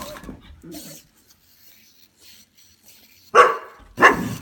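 A poodle barks twice in play, two short sharp barks about half a second apart near the end.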